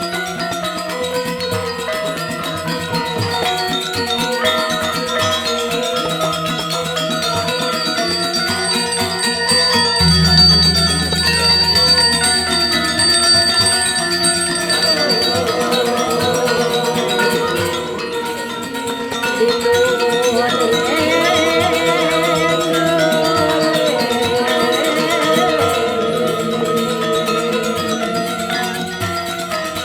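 Balinese gamelan music: bronze metallophones playing interlocking ringing tones, with a deep gong stroke about ten seconds in that slowly fades.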